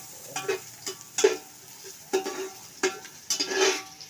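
A metal utensil stirring and scraping sliced onions and whole spices in oil around an aluminium pot, a handful of irregular scrapes each leaving a short metallic ring, over a faint sizzle. The onions are being fried to light brown.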